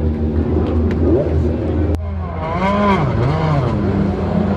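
Race car engines on the grid: a steady low drone, and from about halfway the revs rise and fall repeatedly, about twice a second, as the throttle is blipped.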